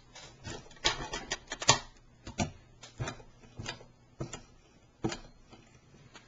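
Model Stirling engine being turned over by hand to get it started, giving irregular clicks and knocks: a quick cluster in the second second, then single ones every half second to a second. The engine is not yet running on its own.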